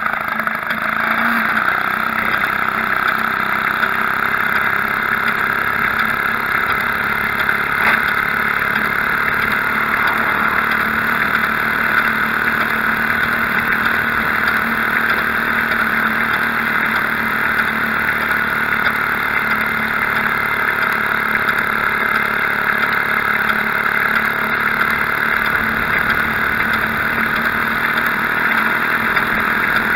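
Maytag Model 72 twin-cylinder two-stroke engine powering a homemade motorbike, running steadily as the bike rides along, heard up close from the frame.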